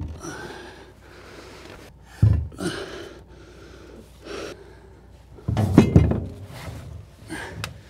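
A man breathing hard and straining as he carries and lowers a heavy Volvo Penta 130S saildrive, with a heavy thump of the unit about two seconds in and a cluster of thumps and knocks near six seconds as it is worked down through the hull opening.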